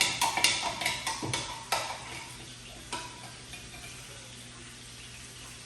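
A metal spoon stirring and clinking against the side of a container. There is a quick run of sharp, ringing clinks in the first two seconds and one more about three seconds in, over a faint steady hiss.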